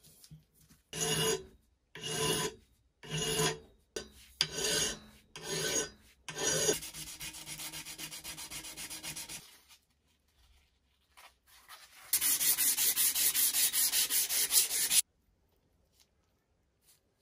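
Brass pump barrel and collar being worked by hand with an abrasive. First come about six separate scraping strokes, then a quieter, even rubbing for a few seconds. After a short pause comes a louder stretch of fast, even back-and-forth scrubbing that stops suddenly.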